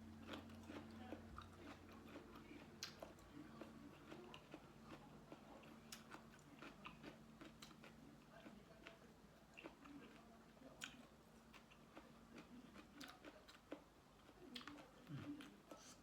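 Faint close-up chewing and biting of a spicy seafood papaya salad with squid and shrimp: scattered soft clicks and crunches. A low steady hum sits underneath and fades out about three quarters of the way through.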